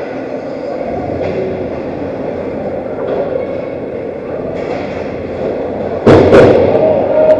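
Steady ice hockey rink noise with a few light knocks from play around the goal, then about six seconds in two loud sharp knocks in quick succession, as sticks, skates or the puck strike at the net.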